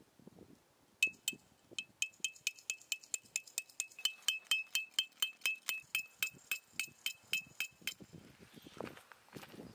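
A hammer driving a metal tent peg into gravelly ground: quick ringing metal-on-metal blows, about five a second, for some seven seconds before they stop.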